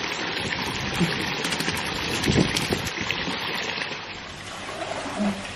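Water splashing and sloshing, with a few sharper splashes about two seconds in, then quieter for the last second or so.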